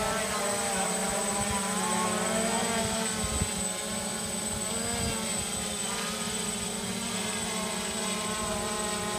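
Quadcopter drone hovering close overhead: the steady buzzing whine of its propellers, several tones together, the pitch wavering slightly as it holds position.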